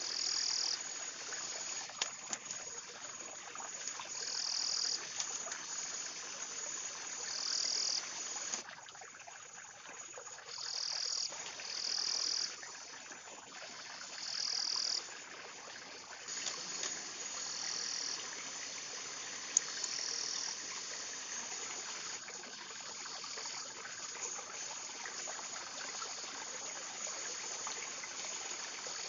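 Forest insects calling: a steady high-pitched buzz, with louder one-second bursts of chirping trills every few seconds. A few sharp clicks stand out, the loudest about two-thirds of the way through.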